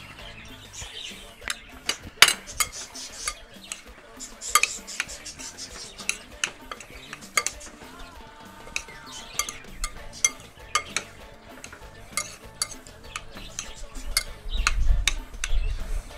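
A spoon stirring pico de gallo in a glass bowl: irregular scrapes and clinks against the glass, with a sharper clink about two seconds in.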